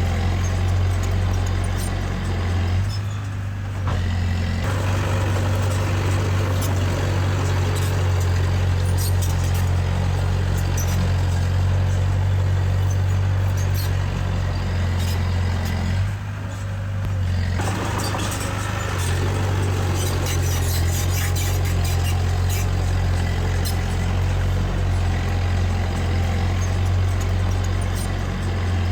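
Diesel engine of heavy earthmoving machinery running steadily under load, with scattered metallic rattles. The engine note eases off briefly about 3 seconds in and again about 16 seconds in.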